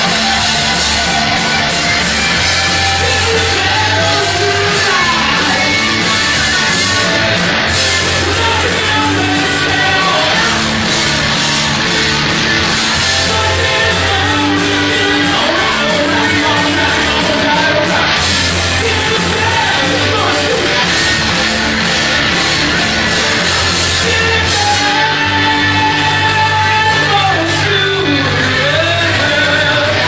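Live rock band playing loud: electric guitar, bass and drums, with a singer belting and shouting the vocals over them.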